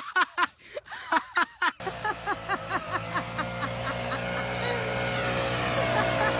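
A person laughing in short, repeated bursts. About two seconds in, a gas-powered backpack leaf blower takes over, its small engine running steadily with a slight rise in pitch, while the laughing bursts carry on briefly over it.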